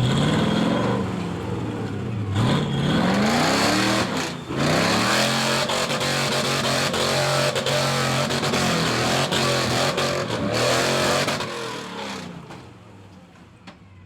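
Chevrolet S10 truck engine revving hard several times, rising and dipping, then held at high revs for several seconds with scattered sharp knocks. The revs fall away and the sound fades near the end.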